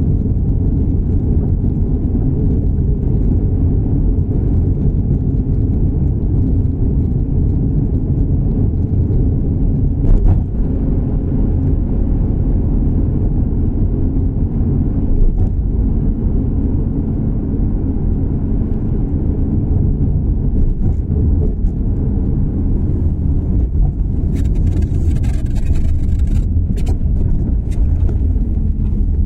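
Steady low rumble of a car's engine and tyres on the road, heard from inside the cabin while driving. There are a couple of brief knocks and a short stretch of hiss near the end.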